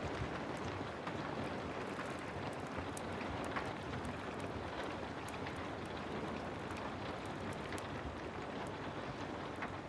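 Heavy rain falling steadily, with scattered faint sharp ticks.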